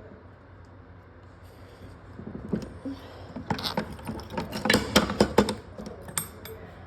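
Irregular clicking, tapping and rattling of hard parts being handled, starting about two seconds in and thickening in the middle.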